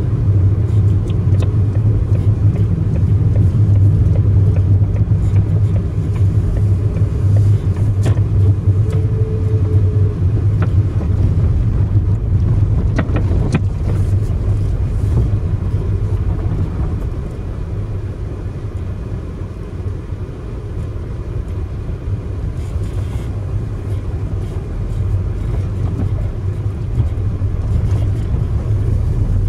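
Car running along a road, heard from inside the cabin: a steady low drone of engine and tyre noise that quietens a little past the middle, with a few faint clicks.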